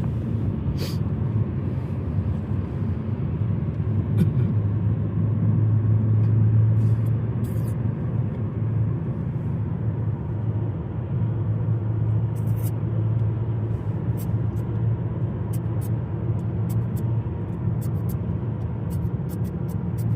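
Steady low rumble of a car's engine and tyres heard from inside the cabin, with a low hum that swells for several seconds about four seconds in and again later.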